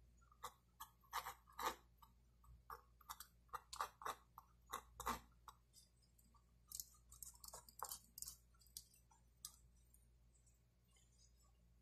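Faint mechanical pencil strokes on drawing paper, sketching short lines: a quick run of scratchy strokes, a pause of about a second, then another run.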